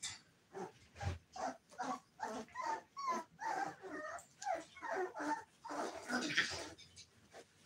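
A litter of American bully puppies whimpering and yipping in a rapid run of short, high whines that bend in pitch, with a louder, harsher outburst about six seconds in.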